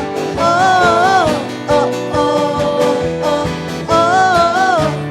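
Worship band music led by guitar, with steady sustained chords and two wavering sung phrases without clear words, one about half a second in and one near the end.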